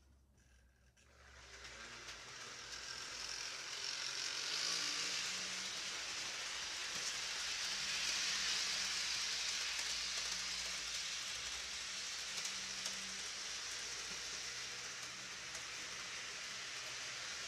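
HO scale model train running around the track: a steady rushing hiss of wheels on rails over a faint motor hum. It builds over the first few seconds and is loudest around the middle, as the train goes by.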